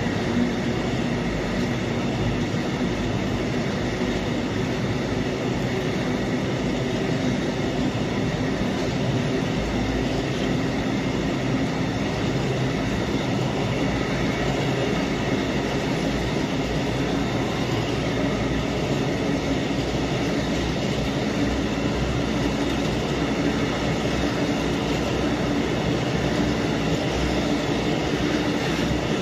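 Train hauled by the Soviet-built M62 diesel locomotive M62-3536 running on the line: a steady, continuous rail rumble with a droning hum under it.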